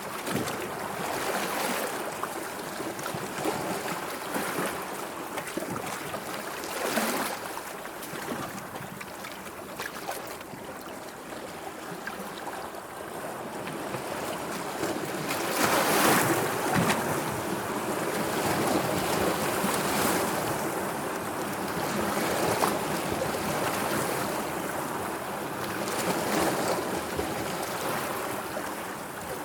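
Sea waves washing in and drawing back, an even rushing of water that swells and eases every few seconds, loudest about halfway through.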